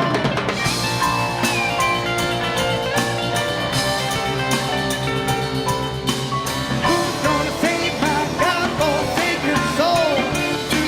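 Southern rock band playing live: a drum kit with steady hits under sustained and bending melodic notes, with some singing.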